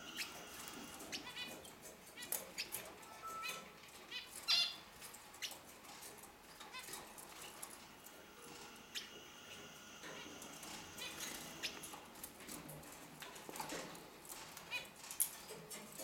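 Caged hooded siskins and canaries chirping and calling: short, high notes and clicks scattered throughout, with small flutters, the loudest burst of chirps about four and a half seconds in.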